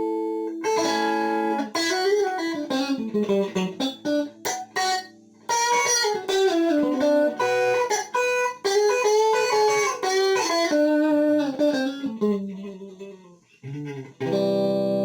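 Electric guitar played through a multi-effect pedal with its compressor engaged: a held chord, then quick single-note melodic runs with bent notes, and a new chord struck near the end that rings on evenly.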